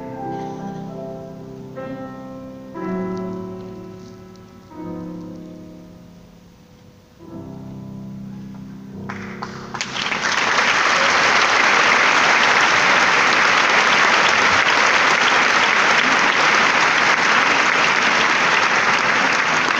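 A grand piano plays the final chords of a song, several chords each left ringing and fading. About nine seconds in, the audience breaks into loud, sustained applause.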